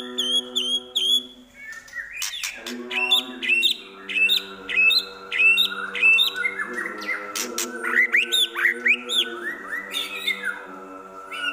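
White-rumped shama singing a fast, loud run of sharp, hooked whistled notes and chattering calls, a song laced with mimicked calls of other birds, with a brief pause about two seconds in.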